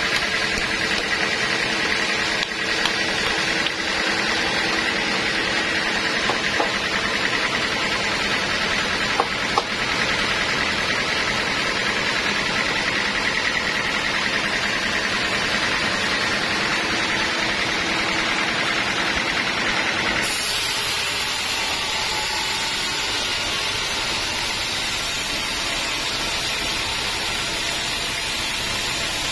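Sawmill saw and machinery running with a loud, steady noise and a high whine, with a few sharp clicks about a third of the way through; the sound changes abruptly about two-thirds through.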